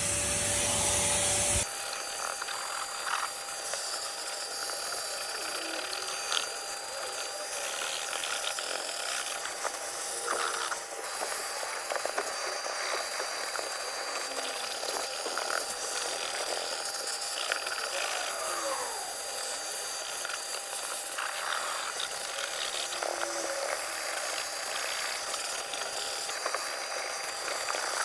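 A small motor-driven detailing machine running steadily, with a high hiss and a thin constant whine. There is a louder burst in the first second and a half and a few light clicks and knocks.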